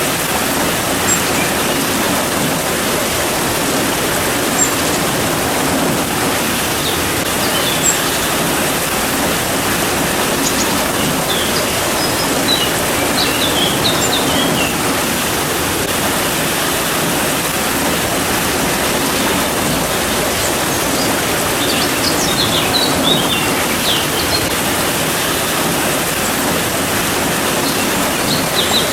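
Steady rain falling with a constant hiss, and small birds chirping in short scattered clusters, about twelve seconds in and again over the last several seconds.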